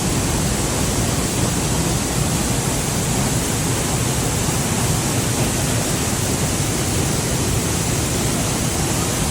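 Dry Falls, a large waterfall in high flow after days of heavy rain, pouring with a loud, steady rush of water.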